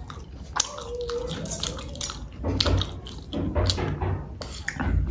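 Close-miked eating sounds: wet chewing and lip smacks with sharp clicks as a mouthful of spicy instant noodles and chicken is eaten.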